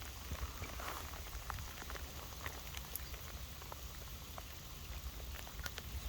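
Light rain falling: a steady hiss with scattered ticks of drops.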